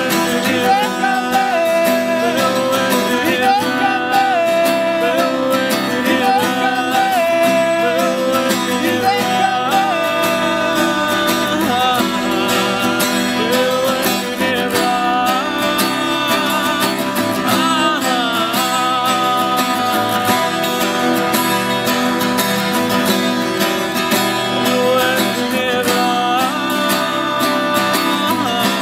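Two acoustic guitars played together in a folk song, with a man singing over them.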